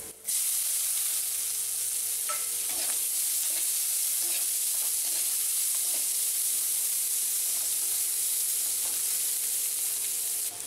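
Chopped onions frying in hot oil in a kadhai, a steady sizzle, with a spatula stirring and faintly scraping the pan. The sizzle jumps up a moment in as the onions go into the oil.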